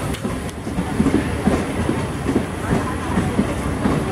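Wheels of a moving passenger train clattering over rail joints and points, heard close from a coach doorway: a running series of wheel knocks over a steady rumble.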